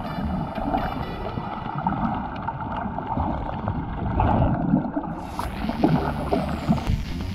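Muffled water rumble and sloshing picked up by an action camera held underwater while snorkelling. About five seconds in, the sound turns brighter and hissier, with a few light knocks.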